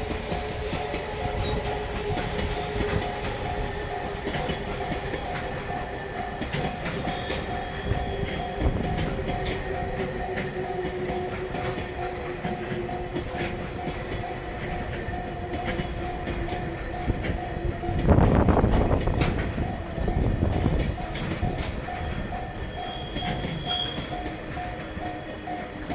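Freight train of Koki container flat wagons clattering over rail joints, a steady run of wheel clicks, while the level-crossing warning bell dings over and over. About eighteen seconds in, a louder rush of train noise swells for a couple of seconds.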